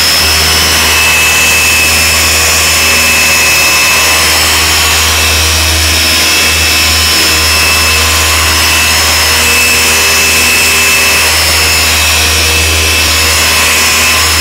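Gear-driven orbital polisher running steadily with a foam pad pressed against a truck's painted panel, cutting out holograms and scratches with compound. Its motor gives a constant low hum under a steady high whine.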